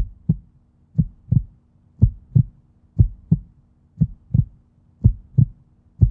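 Heartbeat sound effect: paired low thumps in a lub-dub pattern, about one beat a second, over a faint steady hum.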